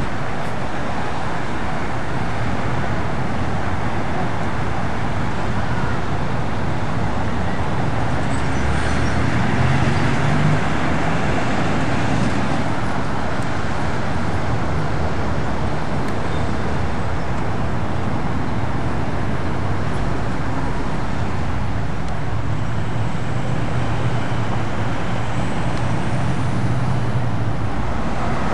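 Steady road and engine noise of a car driving, with a low hum beneath.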